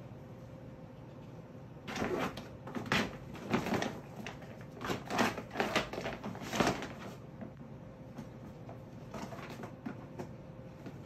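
Bedding and a cloth pillowcase rustling and shuffling as a red fox tugs and noses at them on a bed, in irregular bursts from about two to seven seconds in and fainter again near the end.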